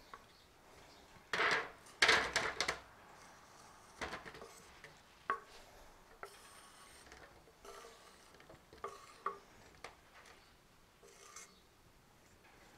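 Wooden spatula scraping cubes of smoked beef off a wooden cutting board into an aluminium foil pan, with the light rattle of the foil pan. Two louder scrapes in the first three seconds, then lighter scrapes and taps.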